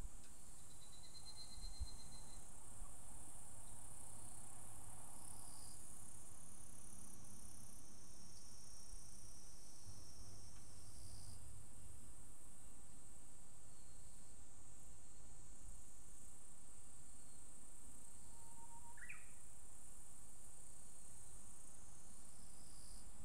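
Higurashi (evening cicadas) calling in a steady, high-pitched chorus. About nineteen seconds in, a Japanese bush warbler sings one short phrase over it: a low held note that rises sharply at the end.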